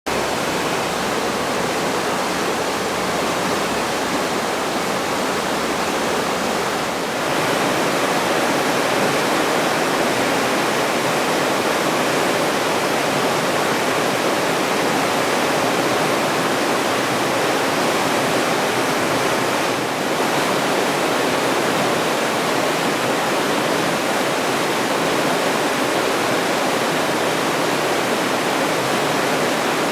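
Rushing water of a mountain stream or waterfall: a loud, steady rush with brief dips about seven and twenty seconds in.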